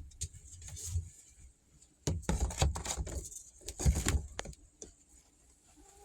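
Rattling and knocking handling noises with a low rumble, loudest from about two to four and a half seconds in, as things are handled while collecting the eggs.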